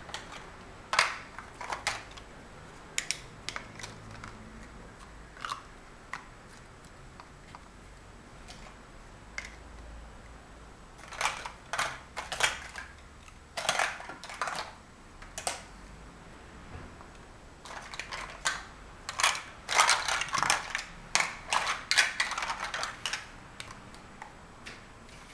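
Large plastic Mega Bloks First Builders blocks clicking and clacking as they are picked up, set down and pressed together. The clicks come irregularly, sometimes singly, sometimes in quick runs, busiest in the second half.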